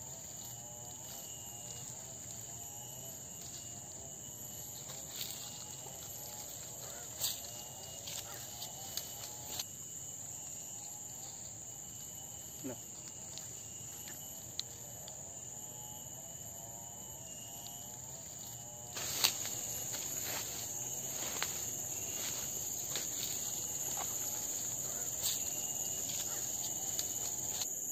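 Steady high-pitched drone of insects in tropical forest, with scattered clicks and rustles of movement through the undergrowth that grow busier and louder from about two-thirds of the way in.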